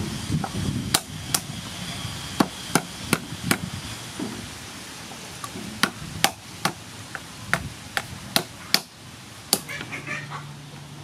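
A wooden pestle knocking cooked crab claws on a wooden chopping board to crack the shells: sharp knocks in short runs of two to four, a little under half a second apart, about fourteen in all.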